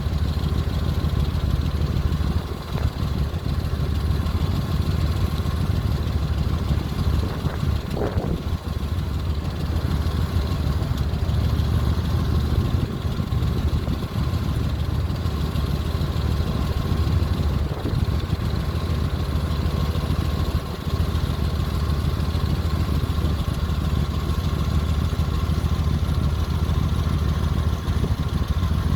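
The Oasis cruise ship's engines and exhaust running with a steady, low rumble, which the uploader likens to a '97 Ford F-150 with an exhaust leak. A brief rising tone comes about eight seconds in.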